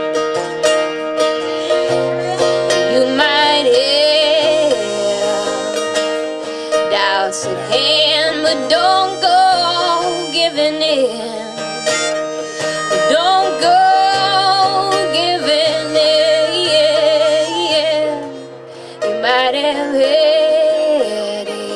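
Live acoustic folk band playing an instrumental stretch: strummed guitar and other plucked strings under a lead melody that bends and wavers in pitch, with a brief drop in loudness near the end.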